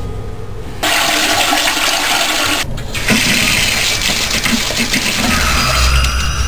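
Water running hard from a sink faucet and splashing over hands in the basin. It cuts in suddenly about a second in, after a low steady hum, and breaks off briefly near the middle.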